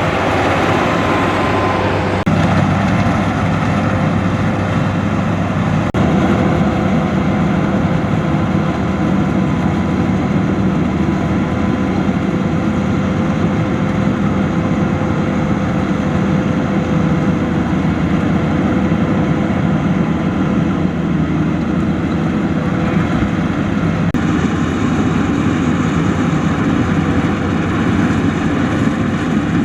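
Combine harvester running steadily in a rice field, its engine and machinery a continuous loud drone with a steady whine over it.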